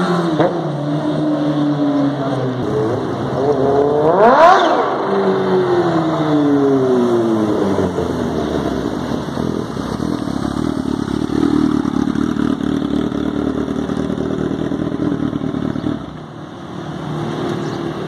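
Kawasaki H2's supercharged inline-four engine being ridden: the engine note falls, rises sharply in a quick rev about four seconds in and falls away again, then holds steadier before dropping off in level near the end.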